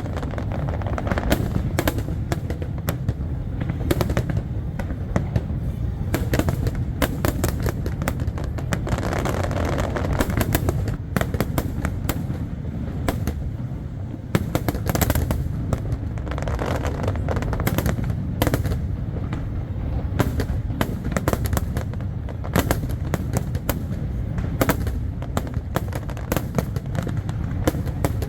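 Aerial fireworks bursting in quick succession: a dense crackle of sharp bangs over a continuous low rumble of booms.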